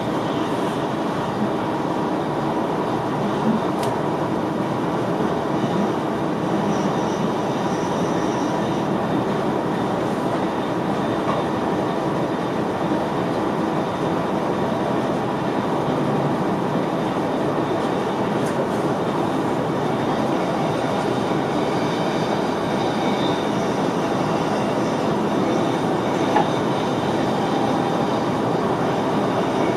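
Steady running noise of an NS VIRM double-deck electric train under way, heard inside the driver's cab: an even rumble of wheels on rail with a few faint clicks.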